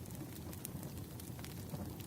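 Wood campfire burning, with a steady low rush of flame and light, scattered crackles of the burning wood.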